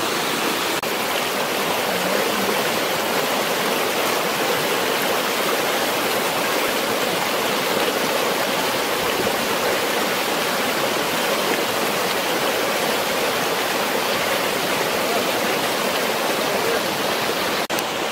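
A shallow stream of water running steadily over rock, with an even rushing sound that barely changes; it drops out for an instant near the end.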